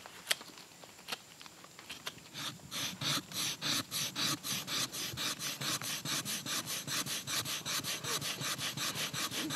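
Dry hibiscus wood being rubbed rapidly back and forth against wood to make fire by friction, the traditional Polynesian fire-plough method. A few light knocks come first, then from about two seconds in an even rasping stroke repeats several times a second and grows louder.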